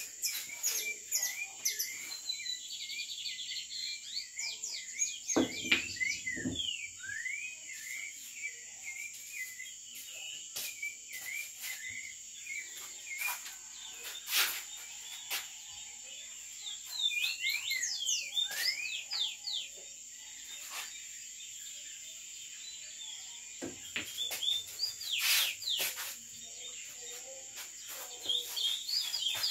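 Outdoor night chorus: a steady high insect trill with repeated runs of quick chirping calls. A few sharp clicks of pool balls being struck come through, the loudest of them about five seconds in.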